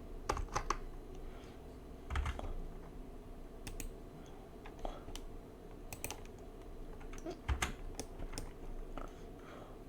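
Faint, scattered clicks and taps of a computer keyboard and mouse at irregular intervals, over a low steady background hum.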